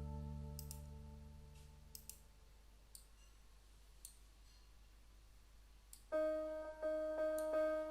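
Background music: a held chord fades out over the first couple of seconds, leaving a few faint clicks. About six seconds in, a new keyboard tune of short repeated notes begins.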